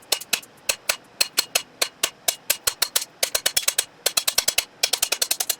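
Rapid ringing hammer blows on a steel anvil, about five a second with quicker runs, as a blacksmith nicks a rivet rod most of the way through so it can later be broken off.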